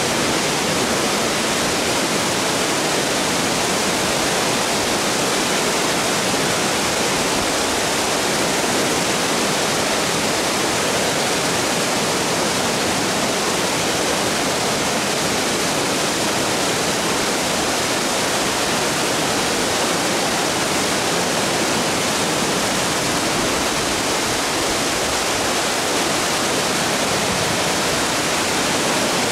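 A large waterfall, Nugget Falls, pouring steadily: a constant, even rushing of water with no let-up.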